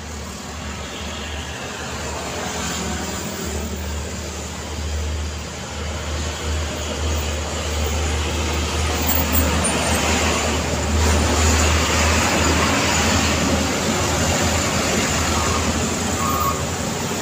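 Road traffic passing close by: cars and motorcycles, then a Hino tipper dump truck's diesel engine and tyres rumbling past. The noise grows louder about eight seconds in as the truck goes by and stays loud with the pickup behind it.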